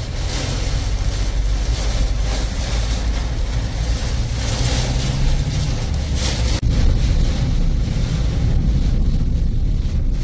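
Cyclone wind and heavy rain beating on a car, with a heavy low wind rumble on the microphone. The noise is steady apart from a very brief dropout about two-thirds of the way through.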